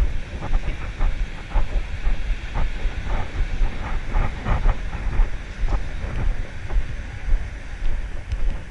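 Wind buffeting the microphone of a walking GoPro, a low gusting rumble, with scattered light clicks and taps through the first half.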